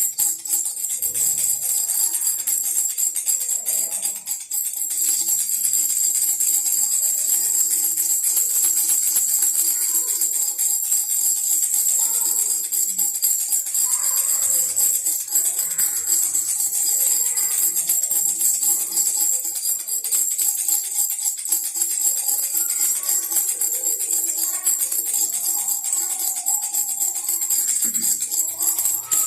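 Baby rattle shaken continuously, a bright, dense jingling like small bells, with a few faint drum beats underneath.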